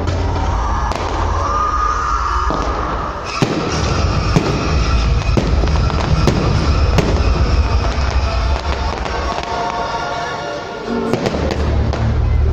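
Fireworks bursting and crackling in quick succession, many sharp bangs, over a loud music soundtrack with a heavy bass.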